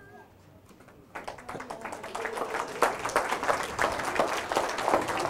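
Audience applauding, starting about a second in and building up.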